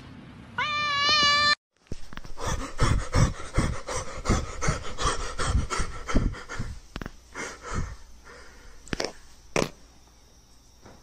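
A cat gives one loud, wavering yowl, a protest at being licked back, which cuts off abruptly about a second and a half in. It is followed by several seconds of rapid, short sharp sounds from another source that fade toward the end.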